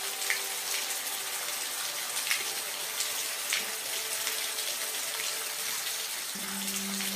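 Steady rain falling, an even hiss with single drops ticking now and then. Soft sustained low music tones sit underneath, with a deeper note coming in near the end.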